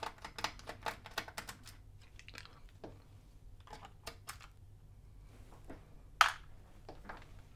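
Quiet, irregular clicks and ticks of hand work with a small screwdriver on the screws holding a notebook's power supply, and of fingers on the plastic case parts. The clicks come rapidly for the first two seconds, then sparser, with one louder click a little after six seconds.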